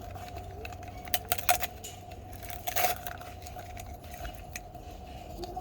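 Small plastic toys and packaging being handled: scattered sharp clicks and crinkles, the loudest a little under 3 s in, over a steady faint hum.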